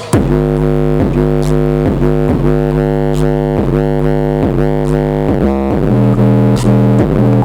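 Electronic music played through a Klipsch R-28F tower speaker. Sustained synthesizer chords are re-struck about twice a second, and the chord changes about five seconds in.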